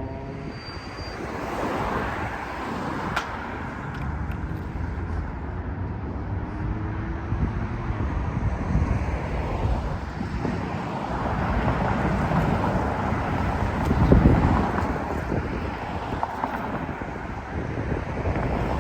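Outdoor street traffic noise: a steady rumble of passing cars with wind on the microphone, one vehicle passing loudest about fourteen seconds in.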